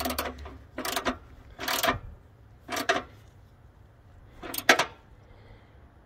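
Hand socket ratchet turning a bolt on a bulldozer's steel access panel, its pawl clicking in five short bursts as the handle is swung back and forth.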